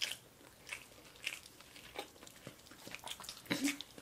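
Close-miked eating sounds: sushi being bitten and chewed, including the nori wrap of a tobiko sushi cone, in scattered short, wet crunches and clicks.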